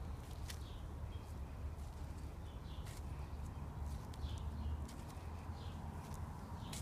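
Outdoor garden ambience: a steady low rumble on the phone microphone, with scattered light clicks and a few short bird chirps.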